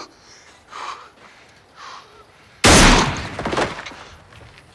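Film sound effect of a brutal knife blow to a man's face: a sudden, very loud, crunching impact about two and a half seconds in, fading over about a second. Two short, quieter sounds come before it.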